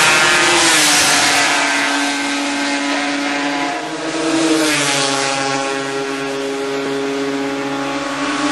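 Several racing motorcycle engines at high revs as a group approaches and passes. The engine pitch dips and rises repeatedly.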